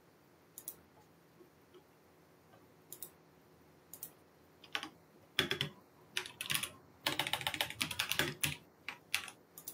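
Typing on a computer keyboard: a few separate keystrokes at first, then a fast run of typing in the second half.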